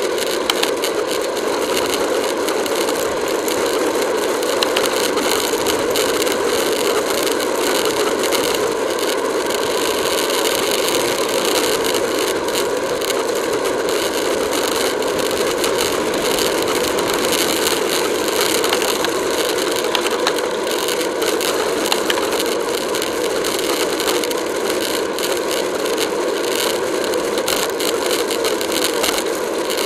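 Steady rush of wind and road noise on a camera mounted to a road bike riding at about 25–28 mph, with a constant fine rattle and ticking from road vibration.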